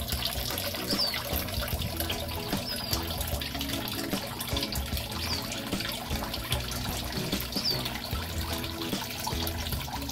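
Water trickling and splashing steadily in a backyard aquaponics system, with a short high chirp repeating about every two seconds.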